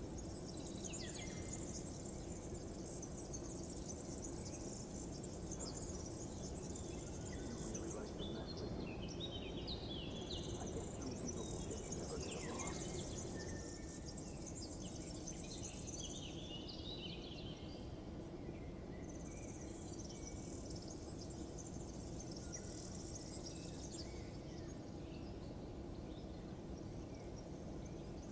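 Outdoor ambience of insects trilling in high-pitched stretches that come and go, with birds chirping in short falling notes through the middle, over a steady low background rumble.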